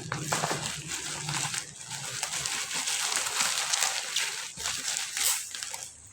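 Toy packaging being cut open with scissors and handled: plastic and cardboard rustling and crinkling, with many small clicks.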